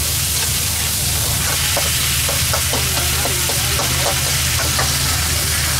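Food frying at a street stall, a steady sizzle, with a faint murmur of voices and a steady low hum underneath.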